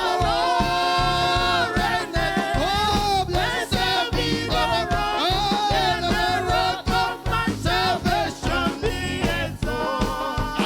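Church congregation singing a gospel praise chorus together, many voices on held notes over a steady drum beat and accompanying instruments.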